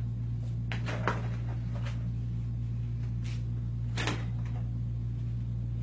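Small objects being handled and set down on a stage floor: a few light knocks and clatters, the loudest about a second in and again about four seconds in. A steady low hum lies under them.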